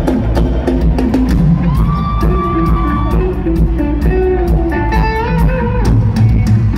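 Live rock band heard from the arena stands: electric guitar and a drum kit jamming loudly, with dense drum hits throughout and a few long held guitar notes.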